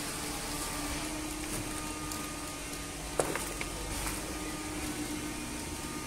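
Waste-paper baling machinery running: a steady hum from the baler line's conveyor and hydraulic drive, with a single sharp knock about three seconds in.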